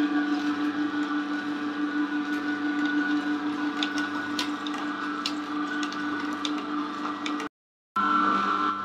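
Cold-press slow juicer's motor running with a steady hum, with scattered short cracks as the auger crushes apple pieces. The sound cuts out for about half a second near the end, then the hum resumes.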